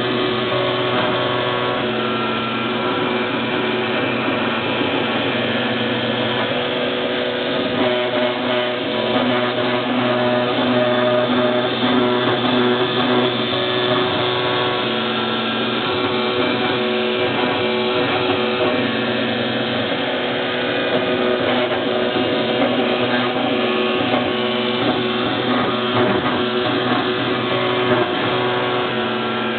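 Homemade CNC wood router milling wood: the AXI Outrigger spindle motor and NEMA 17 stepper motors whine steadily, with several tones that drop out and return from time to time as the axes move.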